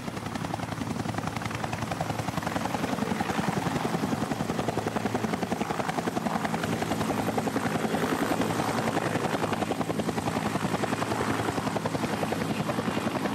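Gendarmerie Eurocopter EC145 rescue helicopter running close by. Its rotor blades keep up a loud, rapid, even beat over the turbine noise, building a little in the first few seconds and then holding steady.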